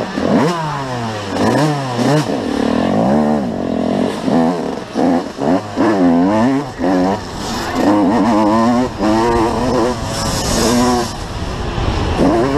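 Motocross dirt bike engine, heard from the rider's helmet, revving hard and dropping again and again as the throttle is opened and closed through corners and gear changes, its pitch sweeping up and down many times.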